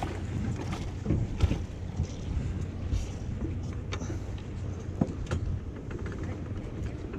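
Steady low rumble of wind on the microphone and water around a fishing boat, with a few sharp knocks and clicks, the loudest about a second and a half in.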